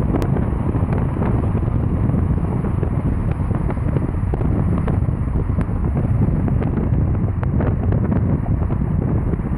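Car driving at speed: steady road rumble and wind buffeting the microphone of a phone held at the car window, with a few faint ticks.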